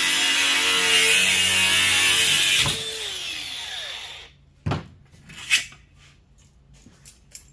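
Angle grinder cutting into a fan motor to take the fan blade off, running steadily, then switched off a little under three seconds in and winding down with a falling whine. A few light knocks and clicks follow as the parts are handled.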